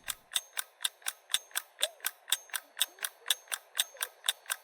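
Clock ticking fast and evenly, about four ticks a second: a countdown-timer sound effect running out the thinking time.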